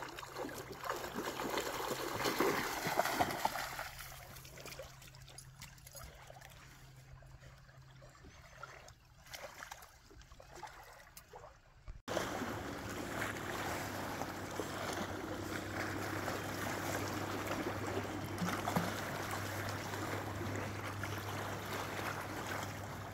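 Water trickling and splashing. About halfway through the sound cuts off sharply and is replaced by a steadier water noise with a low, even hum beneath it.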